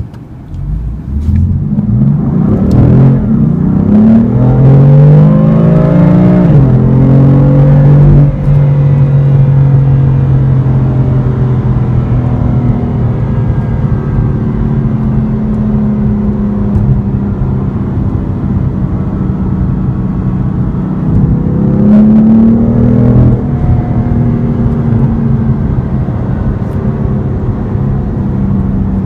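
BMW M4's 3-litre twin-turbo inline-six accelerating hard from a standstill, the revs rising steeply and then dropping sharply at upshifts of the seven-speed M dual-clutch gearbox about six and eight seconds in. It then runs at a steady cruise, with one more short rise in revs and an upshift a little past twenty seconds.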